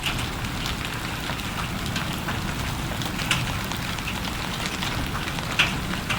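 Heavy rain falling steadily, with scattered louder drops striking close by, the sharpest about five and a half seconds in.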